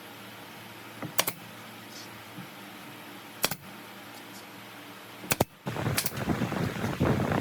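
Woodworking on pallet boards: a few sharp wooden knocks, then a dense, rough, crackling noise for the last couple of seconds.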